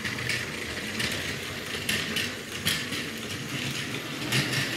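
Battery-powered Plarail Thomas the Tank Engine toy train running along plastic track pulling two coaches: a steady whirring of its small gear motor with occasional sharp clicks.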